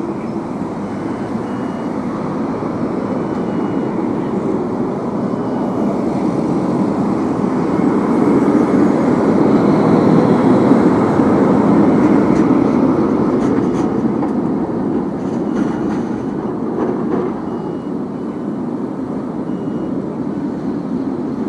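Articulated electric street tram passing close by on street track: its rolling and running noise swells as it approaches, is loudest about ten seconds in, then eases as it moves away.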